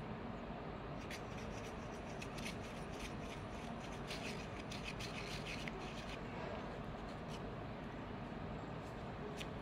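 Metal palette knife scraping and spreading thick paint across paper in a run of scratchy strokes, from about a second in until about six seconds in, over a steady low background hum.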